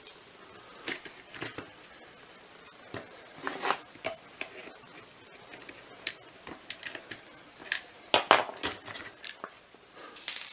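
Hard plastic parts of a Shark cordless-vacuum power nozzle being handled and worked by hand: scattered clicks, taps and light rattles, loudest a little after eight seconds in.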